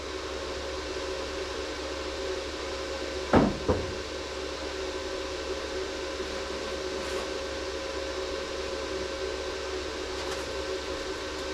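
Two sharp hammer knocks on metal, about a third of a second apart, over a steady machine hum with a few held tones.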